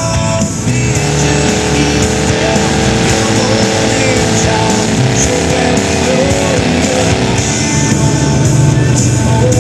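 Truck engines running in a mud bog, mixed with background music with guitar.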